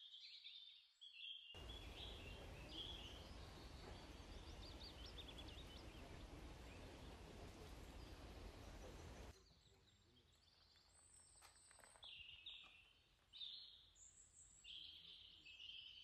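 Small birds chirping in short high calls. From about a second and a half in, a steady rushing noise with a low rumble covers them, then cuts off abruptly after about eight seconds.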